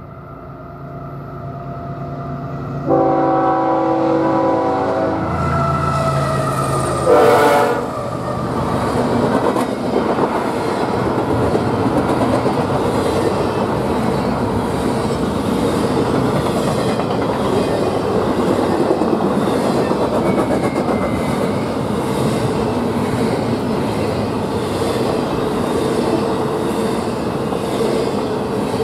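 Nathan Airchime K5HL five-chime air horn on the lead locomotive sounds one long blast from about three seconds in, over the rumble of the diesel engines. The chord slides lower as the locomotive passes, and it cuts off about seven and a half seconds in. After that, double-stack intermodal container cars roll by with steady wheel clatter.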